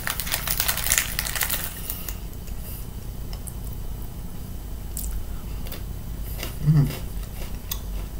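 Plastic wrapper of a Pocky packet crinkling for the first couple of seconds as a stick is taken out, followed by a few faint clicks.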